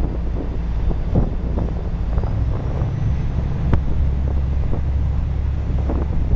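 Low, steady engine drone of a river tour boat under way, with wind buffeting the microphone on the open deck. A single sharp click a little over halfway through.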